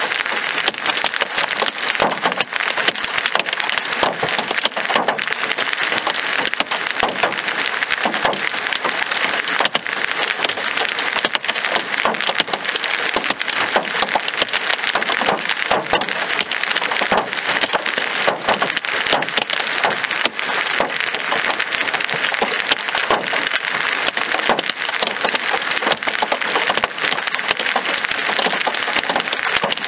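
Large hailstones, golf ball to tennis ball size, pelting down in a dense, steady clatter of countless hard impacts over a hiss of rain.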